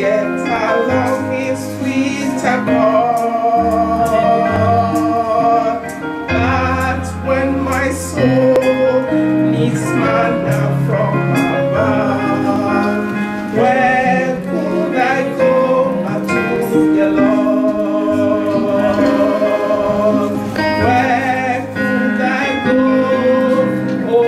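A woman sings a slow gospel hymn over keyboard accompaniment.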